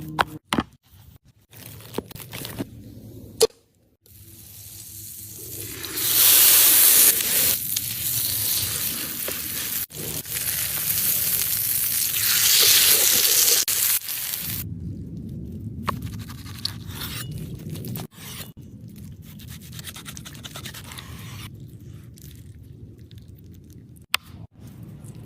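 Cooking sounds: a few knocks and scrapes, then a loud, even sizzle for about nine seconds as food hits a hot pan, settling into a quieter steady sizzle with occasional scraping.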